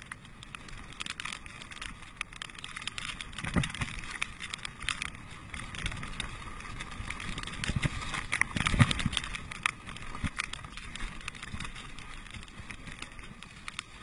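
Mountain bike riding fast down a rough dirt trail: tyres on dirt and a steady rattle of the bike over bumps, with many small clicks and a few heavier knocks about three and a half and eight and a half seconds in.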